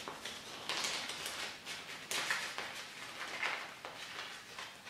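Paper banknotes and a clear plastic zipper pouch rustling in short irregular bursts as bills are handled and slipped in and out of the pouch.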